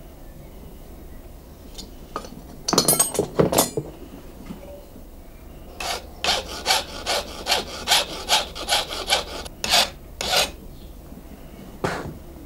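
Flat hand file rasping across a small metal knife end cap. There is a short run of about four strokes, then about a dozen strokes at roughly two a second, and one last stroke near the end.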